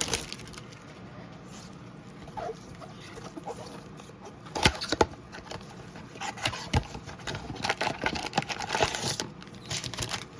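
Foil trading-card pack wrappers crinkling as they are handled and opened, in scattered bursts that grow busier from about halfway through.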